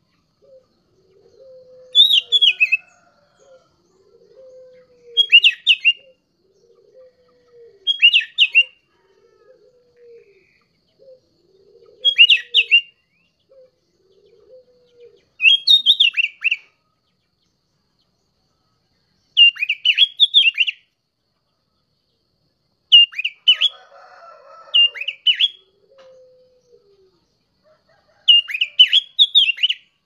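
Young sooty-headed bulbul singing: short, bright, whistled phrases with quick pitch sweeps, repeated every few seconds, about ten in all. A fainter low call repeats about once a second in the background during the first half.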